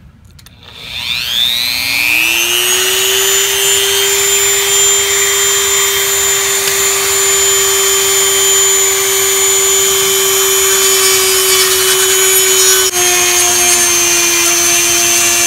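Dremel Model 395 variable-speed rotary tool spinning up about a second in with a rising whine, then running steadily while a small bit grinds the remains of the old knot out of the hollow plastic handle of a vintage Ever Ready C40 shaving brush. Near the end the pitch drops a little as the bit bears in.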